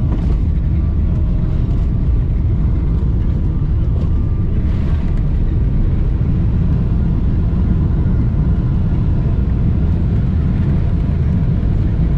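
Cabin noise of a Boeing 777-300ER landing on the runway: a loud, steady low rumble from engines, wheels and airflow as the spoilers go up, with brief noisier rises near the start and about five seconds in.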